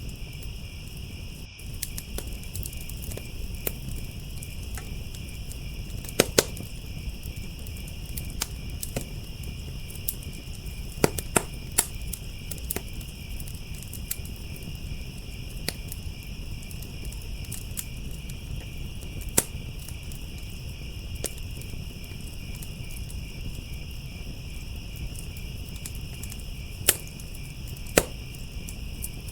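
Crickets chirping in a steady, continuous high trill over a crackling firepit fire, with irregular sharp pops and snaps every second or so, a few much louder than the rest, and a low steady rumble beneath.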